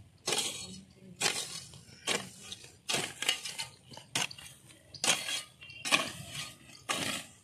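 A long-handled hoe chopping into dry, hard soil: about eight to nine strikes at a steady pace of roughly one a second, each a sharp hit that tails off briefly.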